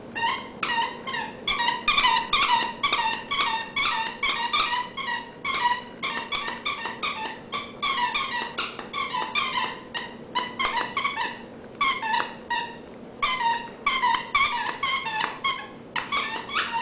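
Plush Christmas-tree squeaky dog toy squeaking over and over as a dog chews it, about three squeaks a second in runs broken by brief pauses.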